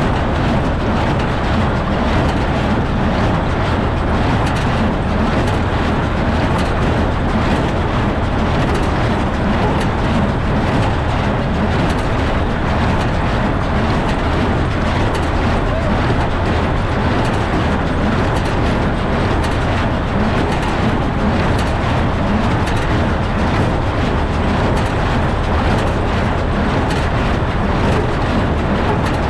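Farm tractor engine running steadily, a continuous even machine noise with a low hum.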